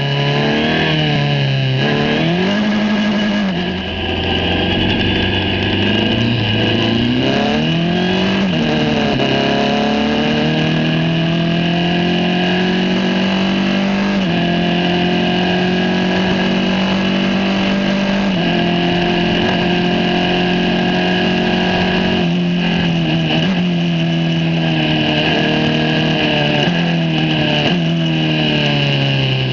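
Formula 4 racing car's engine heard onboard, revving up through the gears with sharp pitch drops at each upshift early on, then holding high revs for a long stretch. A few brief dips come near the end, including a cautious lift off the throttle and back on in the wet. A steady rushing hiss of wind and spray runs under it.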